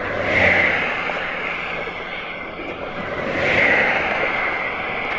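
Traffic on a wet road, two vehicles passing close by, one about half a second in and another about three and a half seconds in, each a swelling and fading hiss of tyres on water over steady road noise.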